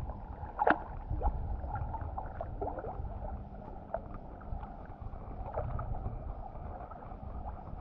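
Water lapping and gurgling against a camera held at the river's surface, with a steady low rumble and a scatter of small sharp splashes and drips, the loudest about a second in.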